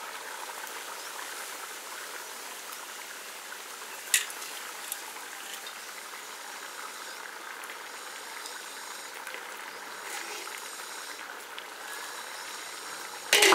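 Pot of mutton pilaf, rice and mutton in water, simmering with a steady hiss. A light clink about four seconds in and a loud clatter near the end.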